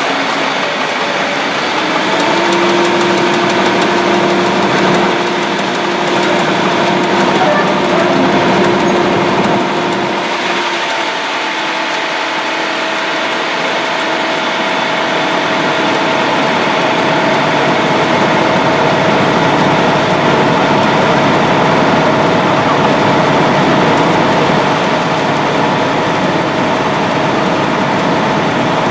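The ferry's engine running steadily under way: a constant hum with steady tones, the lowest of which drops out about a third of the way through while the higher ones carry on.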